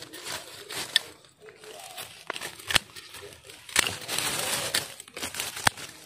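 Dry leaves and brush being handled and pushed through, rustling and crackling, with a sharp snap or click about every second; the rustling is loudest about four seconds in.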